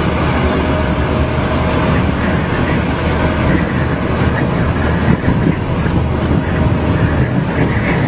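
Steady engine and road noise of a vehicle driving at highway speed in strong wind, with a low hum underneath.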